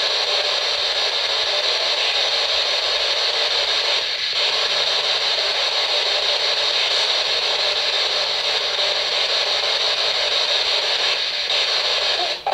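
Spirit box radio scanner sweeping through stations: a loud, steady hiss of static with a few brief dropouts.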